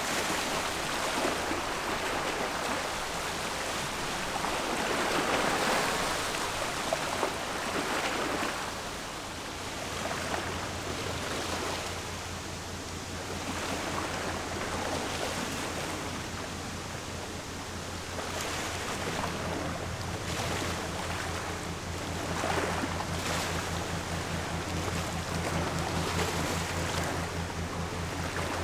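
A steady rush of water and wind as a general cargo ship passes close by, its bow wave breaking along the hull. About ten seconds in, a low, steady, pulsing hum of the ship's engine joins in and keeps on as the stern goes by.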